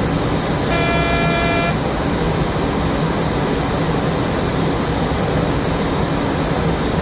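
Steady rushing flight-deck noise of a Boeing 737-400 in descent, with a single electronic alert tone lasting about a second, heard a little under a second in.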